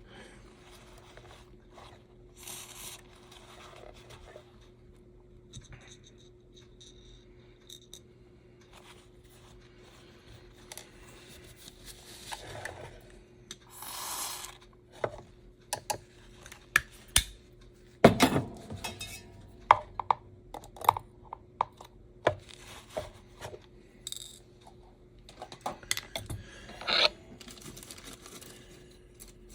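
Small metal parts of an HO-scale slot car chassis clicking, tapping and scraping as they are handled and set down on a work bench, over a steady low hum. There is a short hiss about halfway through.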